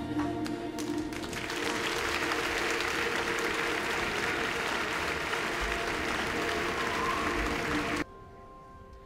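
Audience applauding over held music tones, the clapping swelling in about a second in and cut off abruptly about a second before the end, leaving only quiet sustained music.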